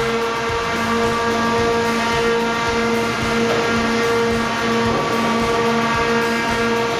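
Sawmill machinery running with a steady, pitched hum over a rough mechanical rumble.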